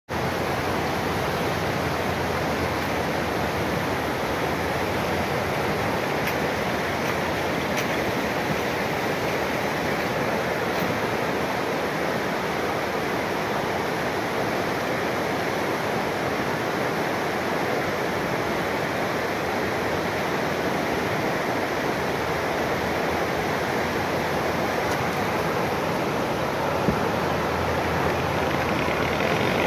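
Steady rushing of a river in flood, a fast muddy torrent running high after heavy rain.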